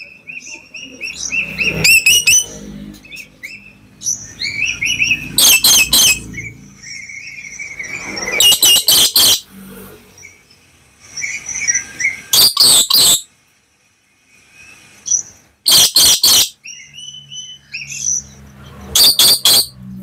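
Black lory calling: six loud, harsh screeches, each a quick run of rasping pulses, coming about every three to four seconds. Softer whistled chirps sound between them.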